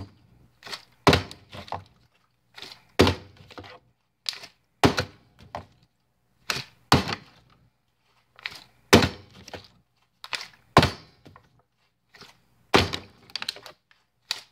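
A partly filled plastic bottle being flipped again and again, landing with a thunk on a hard surface about every two seconds. Several of the thunks are followed by a smaller second knock.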